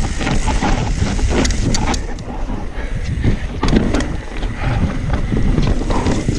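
Mountain bike riding down a wet, rocky forest trail: tyres rolling over dirt and rock with many quick knocks and rattles from the bike, and wind on the microphone.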